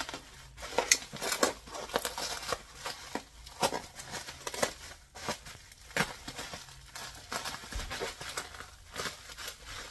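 Plastic bubble wrap crinkling and crackling as it is handled and cut open with a folding knife, in irregular sharp crackles and clicks.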